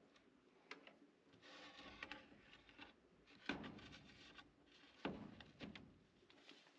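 Faint handling sounds of a plywood door being fitted against a wooden frame: light scraping and small knocks, with two sharper wooden knocks in the second half.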